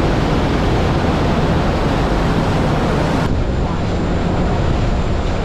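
A whale-watch boat's engines running at speed under way, a steady low drone under the churning rush of its wake, with wind buffeting the microphone. The sound changes abruptly about three seconds in, with less high hiss.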